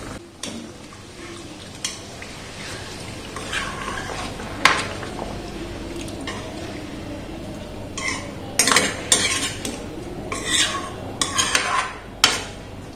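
Steel spoon stirring a watery chicken curry in a metal kadai, scraping and clinking against the pan. A few separate knocks in the first half, then a quicker run of scrapes and clinks from about eight seconds in.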